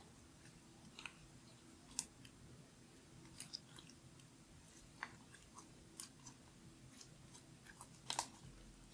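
Glitter slime being handled, giving faint, irregular little clicks and sticky pops, with a few sharper ones about two, six and eight seconds in.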